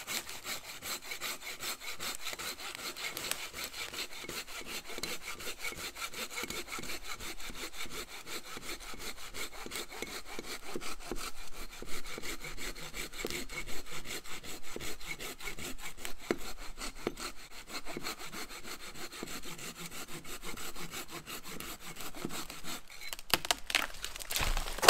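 Silky Big Boy folding hand saw cutting through wood, with a steady run of rapid back-and-forth strokes.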